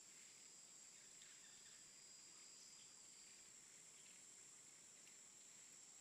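Near silence of falling snow: a faint, steady high hiss with a few soft ticks, and hardly any wind.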